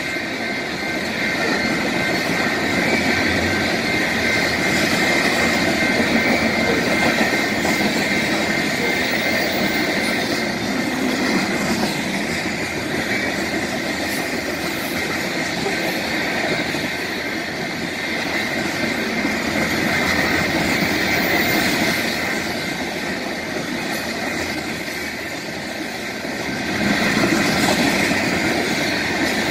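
A BNSF crude oil train's tank cars rolling steadily past, wheels running over the rails and crossing, with a steady high-pitched tone running through the rumble.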